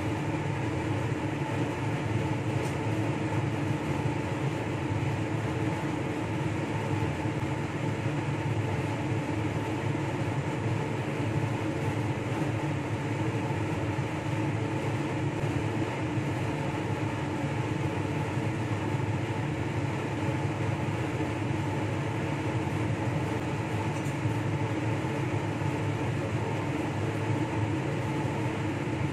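Laminar-flow clean bench blower running steadily: an even rush of air with a low hum and several steady tones.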